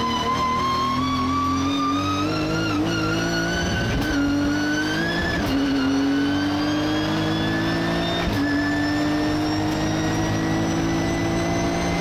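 Nissan GT-R GT3's twin-turbo V6 under hard acceleration, heard from inside the cockpit: a steady engine note climbing slowly in pitch, broken by a few brief dips and sharp clicks at gear changes.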